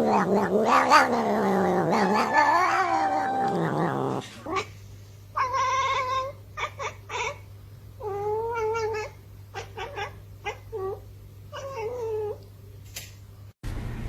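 A cat yowling in long, wavering calls for about four seconds, then a run of shorter meows with pauses between them.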